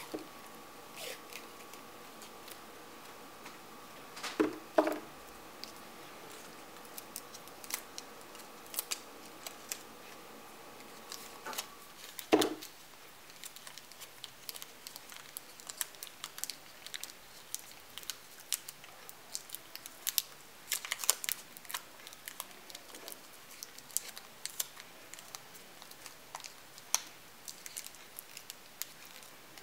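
Clear adhesive tape pulled off its roll and pressed around a small rolled paper tube: a run of small crinkles and clicks, with a few louder rips of tape. A faint steady tone stops about halfway through.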